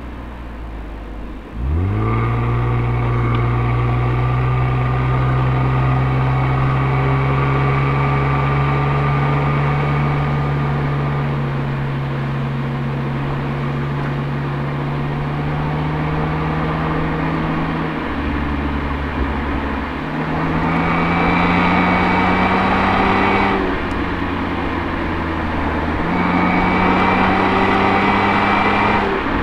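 Toyota Altezza's 1G-FE 2.0-litre straight-six through an Apexi aftermarket exhaust, heard from close behind at the rear bumper. It starts at a quiet idle, the note climbs sharply about two seconds in as the car pulls away, then rises slowly under steady throttle. Later in the clip the revs drop and climb again twice as the throttle is eased off and reapplied.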